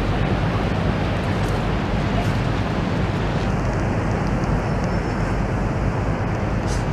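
River tour boat underway, its engine giving a steady low drone under a constant rushing noise.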